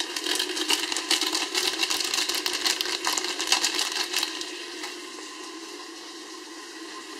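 A plastic seasoning packet crinkling as it is shaken out over meat and vegetables frying in an Afghan kazan. The dense crackling stops about four seconds in, leaving a faint steady hum.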